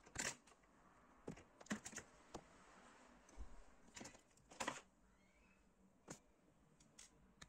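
Faint, scattered clicks and taps of small parts and tools being handled on a workbench, irregular and a dozen or so in all, the loudest a couple just after the start and a pair about four and a half seconds in.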